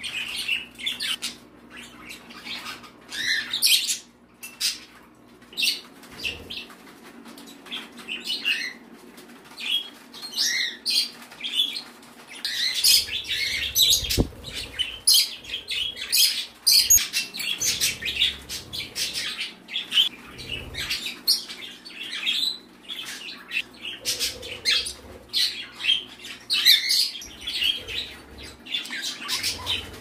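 A room full of pet birds (budgies, cockatiels and other small parrots) chirping and squawking all at once in dense, overlapping calls, with some wing flapping. A steady low hum runs underneath.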